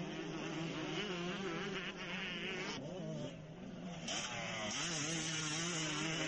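Motocross dirt bike engines buzzing and revving, several at once, their pitch rising and falling as the riders work the throttle.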